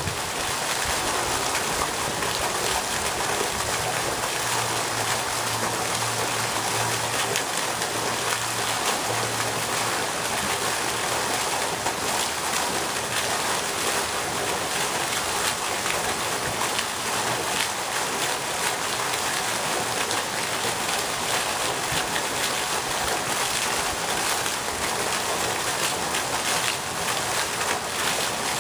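Ornamental pond fountain: a vertical water jet falling back onto the pond surface with a steady splashing.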